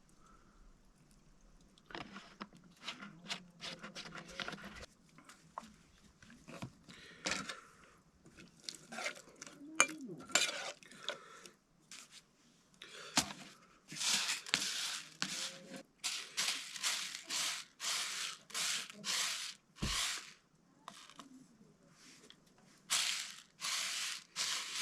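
Kitchen handling sounds during food preparation: dishes and utensils clinking and rustling, then a run of rhythmic noisy strokes about two a second in the second half.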